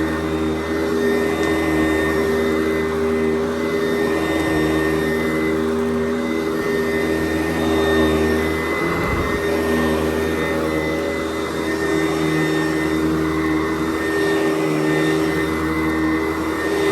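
Sanitaire SC889B upright vacuum cleaner running over carpet, a steady motor hum that swells and eases slightly as it is pushed back and forth. A brief low thump about nine seconds in.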